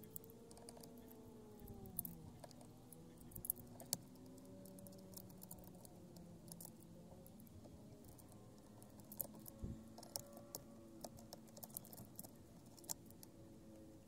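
Light, scattered clicks and taps of Torx keys and small screws as the steering-column switch screws are undone.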